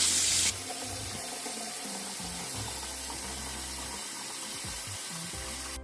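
Water running steadily for a rinse after descaling, to flush out the descaling solution. It is louder for the first half second, then drops to a lower, even flow.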